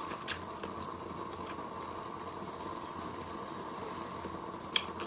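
Quiet steady room hum with a couple of faint short clicks, one near the start and one near the end.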